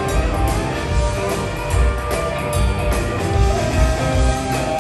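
Live band playing an upbeat boogie-woogie number: electric guitars, piano and drum kit with a steady beat, heard from the audience in a concert hall.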